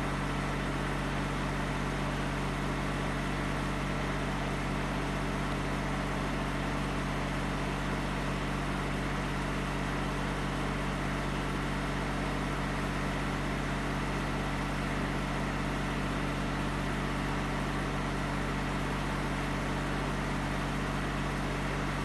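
Portable generator running at a steady pitch: an unchanging engine hum with a few level low tones under a constant hiss.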